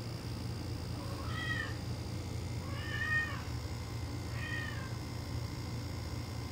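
Kitten meowing three times, high-pitched calls that rise and fall, about a second and a half apart.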